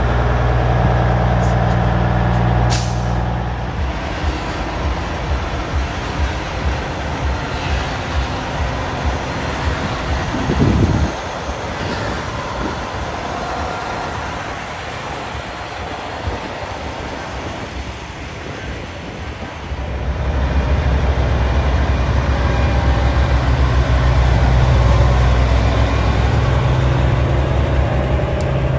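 Diesel semi-truck engines running, with a short sharp air-brake hiss about three seconds in. The engine sound turns rougher and quieter through the middle, with one brief loud burst, then a deep steady drone returns strongly for the last third.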